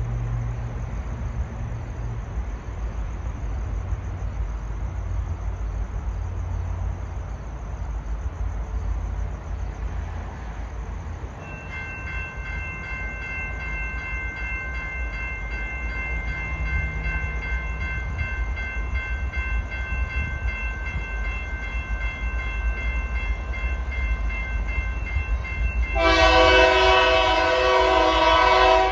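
Horn of BNSF locomotive 4717, leading an oncoming freight train, blowing one loud, many-toned blast starting about 26 seconds in. Under it is the low rumble of the approaching train, and from about 11 seconds in there is a steady high-pitched ringing.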